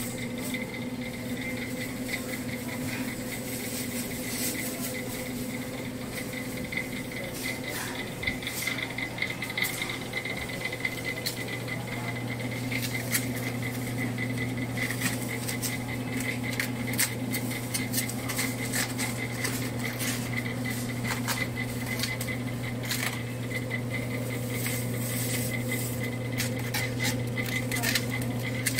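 Steady low hum of a supermarket's refrigerated meat display case, with scattered light clicks and clatter that grow more frequent after the first few seconds.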